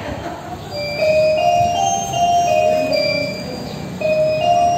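Slow melody of clear, bell-like chime notes, each held about half a second to a second and stepping up and down in pitch.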